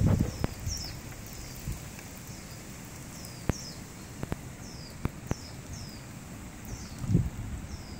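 A small bird calling outdoors with repeated short, high chirps that each drop in pitch, coming in loose runs of one to three a second. A few sharp clicks and low bumps come through as well, near the start and again about seven seconds in.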